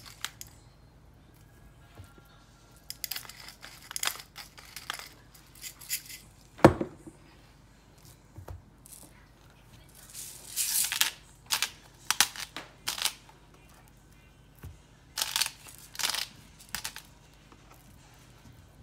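Hand-twisted pepper mill and salt grinder crunching peppercorns and coarse salt in repeated short bursts of a second or so, with one sharp knock about seven seconds in.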